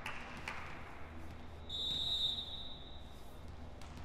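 Referee's whistle blown once in a single steady high blast of about a second and a half that tails off, the signal that authorises the next serve in volleyball.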